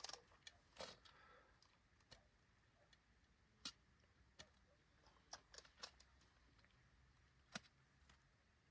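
Near silence broken by about ten faint, sharp clicks and light taps at irregular intervals, the clearest a third of the way in and near the end.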